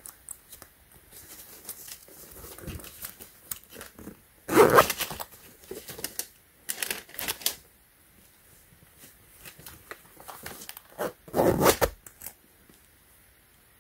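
A leather boot's side zipper being unzipped, then zipped back up about seven seconds later, each pull a quick rasp of about a second, with softer rustling and handling of the boot and tissue paper in between.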